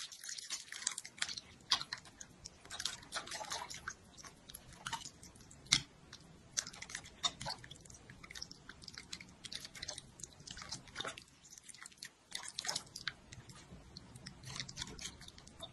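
A metal spoon stirring and scooping through a large bowl of dumplings in chili-oil soup while vinegar pours in from a bottle: a string of irregular, quiet wet clicks, splashes and light clinks.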